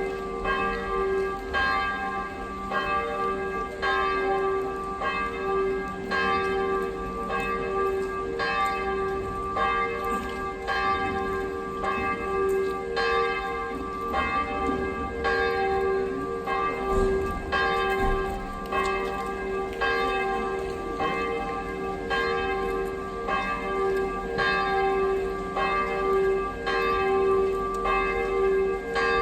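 Church bells pealing: several bells swinging and striking in steady, overlapping succession, a little more than one stroke a second. The deep bell's hum carries on underneath.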